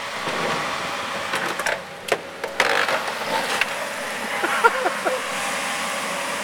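Excavator running, with several sharp knocks and crunches about two to three and a half seconds in and a few short squeals near the end, as it works on the body of an old Mercedes 300D car.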